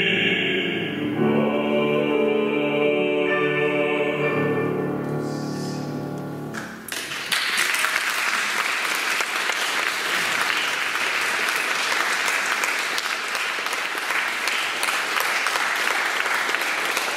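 A bass voice with piano sings the last phrase of a waltz romance and holds a long final note that stops about seven seconds in. Audience applause follows and continues steadily.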